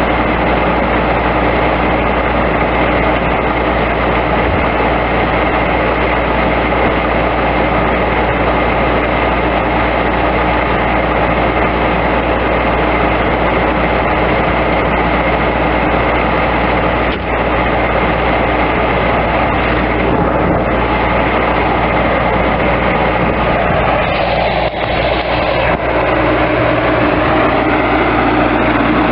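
Bobcat S185 skid steer loader's diesel engine running steadily, with a brief change in tone about three-quarters of the way through.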